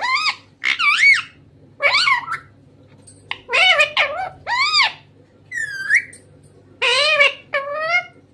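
Green parrot giving a series of about eight short, squawky calls, each sliding up and down in pitch, with brief pauses between them.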